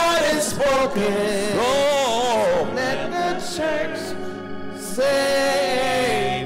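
Gospel singing with long, wavering held notes.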